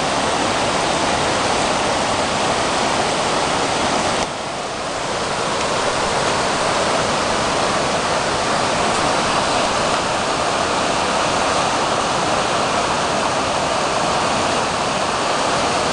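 A creek in flood, fast brown water rushing over a submerged road in a steady, loud roar of moving water. The level dips briefly about four seconds in, then the rushing carries on.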